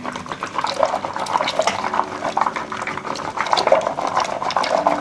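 A wooden stick churning soaked toru (acai palm) fruit in a pot of water, a fast, uneven sloshing and squelching as the fruit flesh is beaten off the seeds to turn the water milky.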